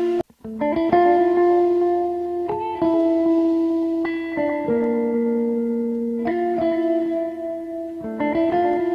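Background music: a slow melody of held, plucked notes, with a brief break in the sound just after the start.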